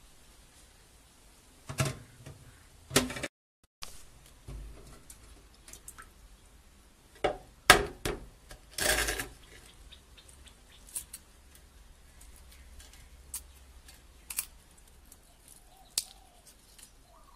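Hard-boiled egg being cracked on a wooden cutting board and its shell peeled off by hand: a series of sharp taps and crackles, the loudest cluster about seven to nine seconds in, then small scattered clicks of shell breaking away. Two knocks in the first few seconds.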